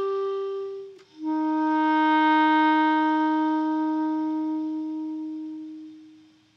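Solo clarinet holding long sustained notes: one note ends about a second in, and after a short break with a faint click a lower note begins, swells, then slowly fades away to nothing near the end.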